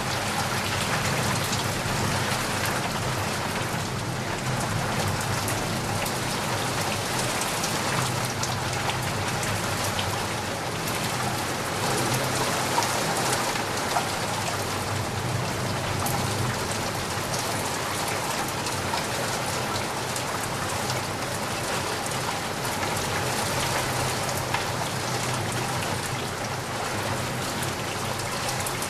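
Heavy rain falling steadily, a dense even hiss with many individual drops pattering on a surface.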